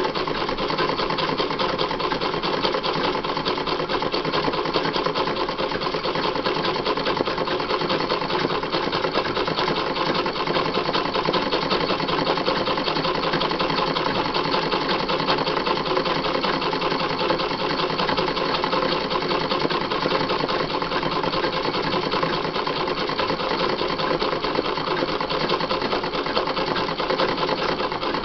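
Sewing machine stitching without pause at a steady fast rate during free-motion embroidery, the fabric moved by hand in a hoop under the needle.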